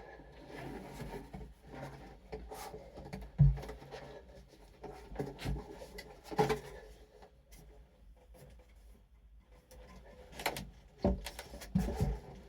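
Irregular knocks, bumps and rubbing of objects being handled, in a small enclosed space, with a handful of louder thuds spread through it.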